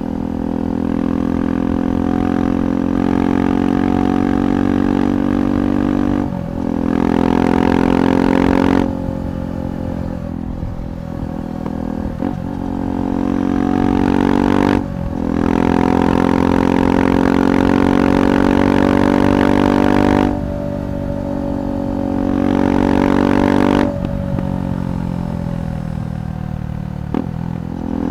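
KTM 390 Adventure's single-cylinder engine running through an aftermarket Red Rooster performance exhaust while riding. The sound swells as the throttle is opened and drops back several times, with brief sharp dips at gear changes.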